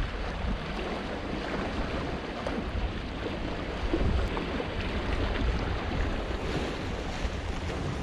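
Wind buffeting the microphone, a steady low rumble, over choppy sea waves washing against breakwater rocks.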